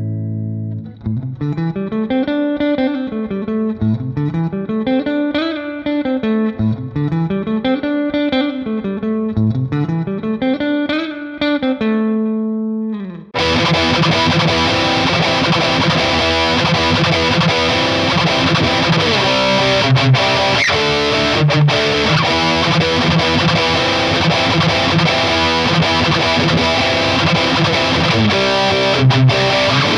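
Harley Benton SC-Custom Plus electric guitar with EMG pickups, first played clean in repeated rising-and-falling arpeggio runs. About thirteen seconds in it switches suddenly to heavily distorted rhythm playing, louder and denser.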